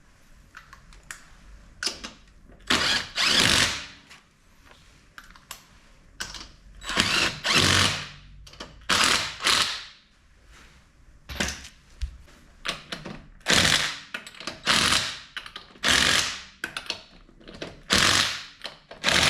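An impact wrench running in about a dozen short bursts of half a second to a second each, with quieter pauses between them, as lug nuts are driven onto a wheel.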